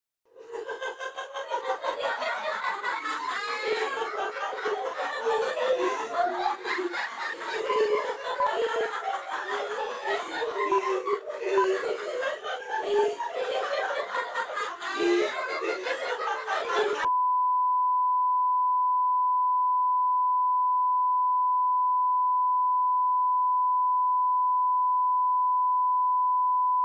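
Many overlapping voices laughing and snickering at once, a dense, choppy jumble that cuts off suddenly about seventeen seconds in. A steady 1 kHz test tone, the kind that goes with television colour bars, takes over and holds unchanged.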